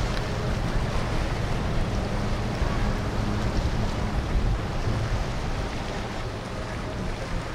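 Boat motors running on the water, with wind buffeting the microphone.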